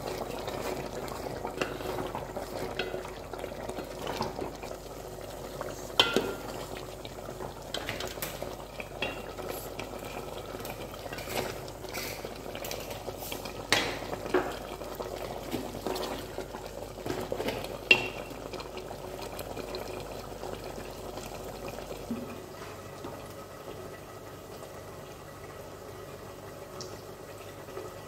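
A spoon stirring thick curry in a steel pot, scraping and knocking against the pot's side, with the loudest knocks about 6, 14 and 18 seconds in. The stirring eases off after about 22 seconds.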